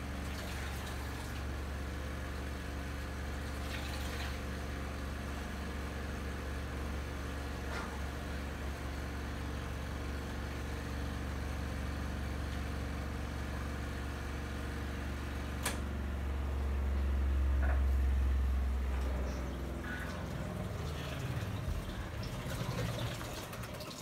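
Twin-tub washing machine's electric motor running with a steady low hum. It swells louder about two-thirds of the way through, then drops in pitch and winds down to a stop, with a few faint clicks along the way.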